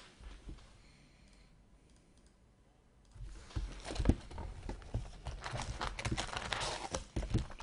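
Near quiet for about three seconds, then a quick, uneven run of light clicks and taps, as from hands working on a tabletop.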